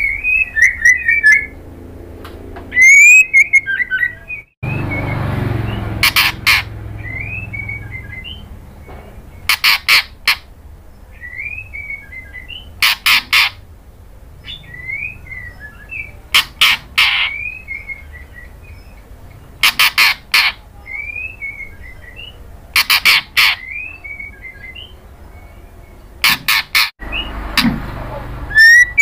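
White-rumped shama calling: loud runs of three or four sharp, clipped notes repeated about every three seconds, with quieter sliding twittering phrases in between.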